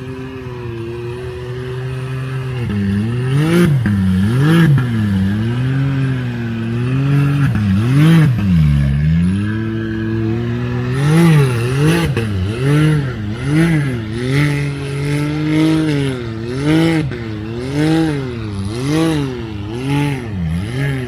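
Side-by-side UTV engine revving up and down over and over while it churns through a deep mud hole, the pitch rising and falling about once a second in the second half as the throttle is worked to push through the mud.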